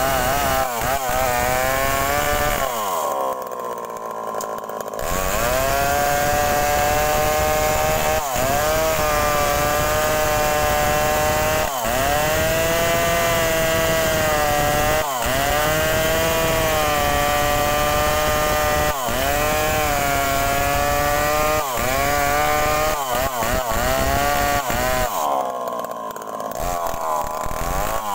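Two-stroke petrol chainsaw cutting through a rubber-wood log, the engine note sagging and recovering every few seconds as the chain bites. Twice, about three seconds in and again near the end, the saw drops back to a lower, quieter running between cuts.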